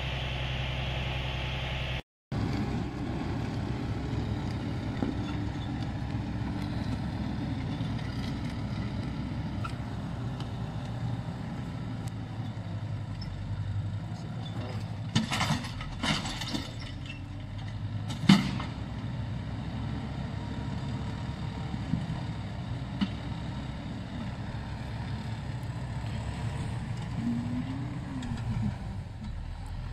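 Diesel tractor engine running steadily under load while it pulls a forestry plow through the ground. A few sharp clicks come in the middle, the last of them the loudest.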